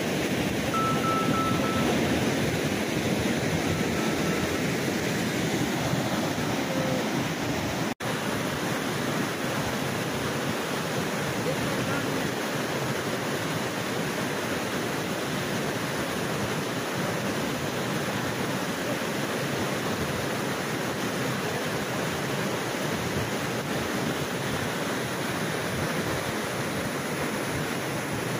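Fast-flowing floodwater rushing over rocks in a swollen mountain river, a steady, dense roar, with a split-second dropout about eight seconds in.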